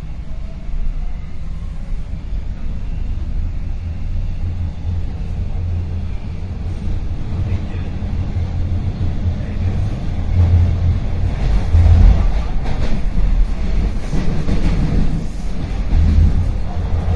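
Subway train ride: a steady low rumble of the train running on the rails, growing louder from about ten seconds in, with rattling and clacking near the end.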